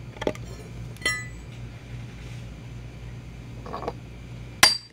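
Steel hand tools clink against each other and the board, one with a brief metallic ring about a second in. Near the end comes one sharp hammer blow on the back of a hatchet whose blade is set in a glued birch plywood joint, to split the liquid-nail bond apart.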